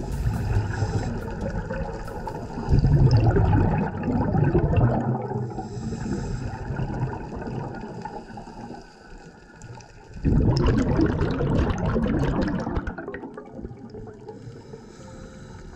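Scuba diver's exhaled air bubbling out of the regulator underwater, a rushing gurgle that comes in surges a few seconds long with quieter spells between, the strongest about ten seconds in.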